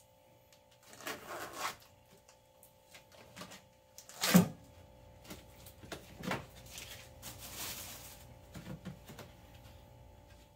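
Kitchen handling noises: the plastic film of a tofu tub rustling as it is peeled off, one sharp knock a little after four seconds in, then more rustling and a few small clicks, over a faint steady hum.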